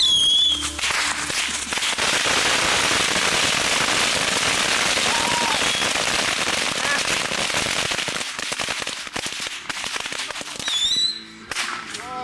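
Many bottle rockets going off at once: a loud, dense crackling hiss full of sharp pops. A short whistle sounds at the start and another shortly before the end, and the barrage dies down shortly before the end.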